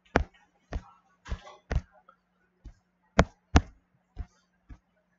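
About nine sharp, irregular clicks and taps from working a computer's controls while a glitch in the document viewer is sorted out, the two loudest close together a little past three seconds in. A faint steady electrical hum sits underneath.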